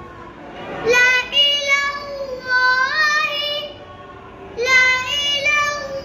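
A boy reciting Arabic letters and syllables from a Noorani Qaida lesson in a high, sing-song chant. There are two phrases with a short pause between them.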